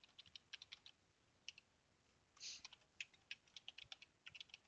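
Faint typing on a computer keyboard: a quick, irregular run of soft keystroke clicks, with a brief soft hiss about halfway through.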